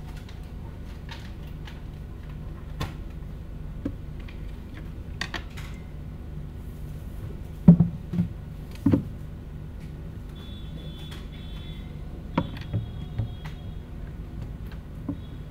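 Study-hall room sound: a steady low hum with scattered small knocks and clicks from people working at desks, and a few louder knocks about eight to nine seconds in.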